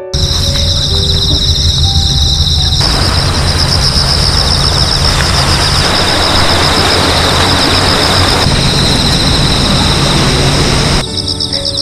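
Crickets trilling in a steady, pulsing high chorus over a loud rushing noise with a low rumble, the rushing strongest through the middle. A few soft music notes sound near the start and again near the end.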